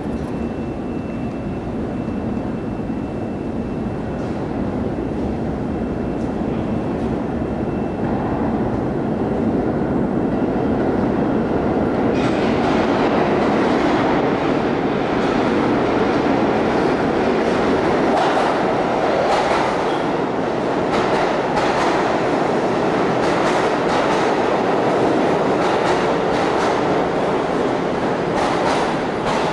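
Pullman Standard R46 subway train approaching through the tunnel and rolling into an underground station. Its rumble grows steadily louder and turns brighter about twelve seconds in, as the train reaches the platform. Over the last ten seconds the wheels add a clatter of clicks as the cars run alongside the platform.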